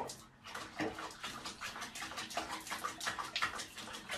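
Small splashes and sloshes of soapy water in a plastic basin as a wet cat moves about in the suds, coming as many short, irregular splashes.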